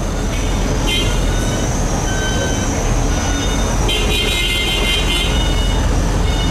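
Tram running: a steady, loud rumble of wheels and running gear, with short shrill tones about a second in and again between four and five seconds in.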